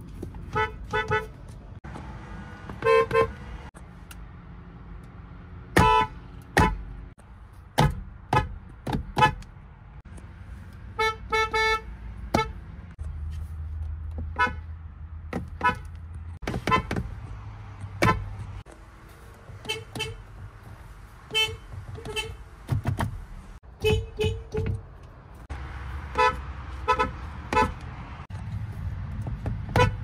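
Horns of several Hyundai cars, one after another, each tapped in short beeps, mostly in quick runs of two or three.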